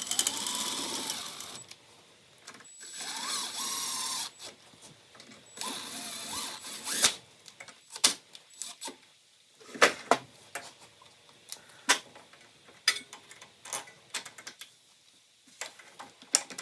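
A small handheld power driver with a 3/8 socket runs the cylinder-head bolts of a Briggs and Stratton engine down snug in three short whirring bursts. Scattered sharp clicks and metal knocks follow as the socket and tool are moved from bolt to bolt.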